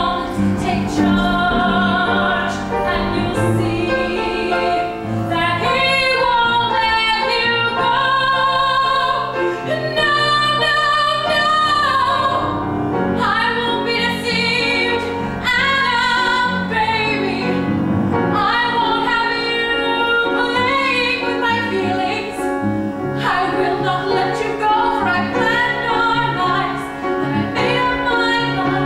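A woman singing a solo song from a stage musical over instrumental accompaniment, with vibrato on long held notes.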